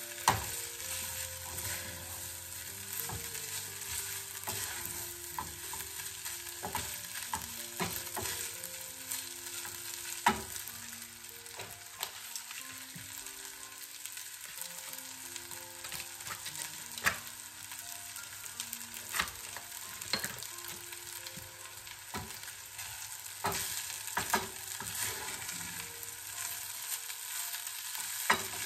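Spiced rice sizzling in a metal saucepan while a wooden spoon stirs and scrapes through it. A few sharp knocks come as the spoon hits the side of the pan.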